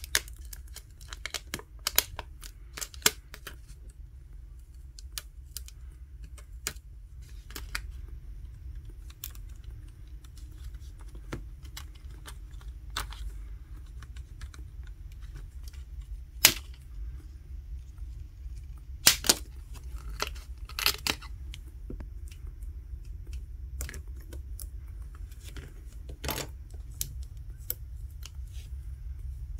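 Hands handling a Samsung Galaxy S20 replacement screen assembly: scattered light clicks, taps and crinkles of plastic film and flex cables, with a few louder clicks in the second half, over a low steady hum.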